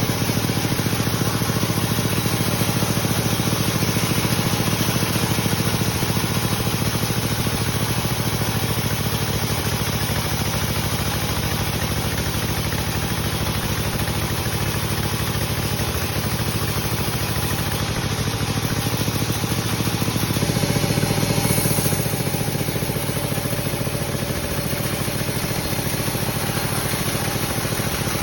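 Sawmill machinery running steadily with an engine-like drone, its tone shifting slightly about two-thirds of the way through.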